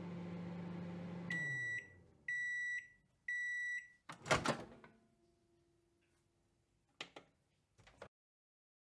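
Microwave oven running with a steady hum that winds down about a second in, then three half-second beeps a second apart as its timer ends cooking. A loud clunk of the door opening follows, then a couple of soft clicks near the end.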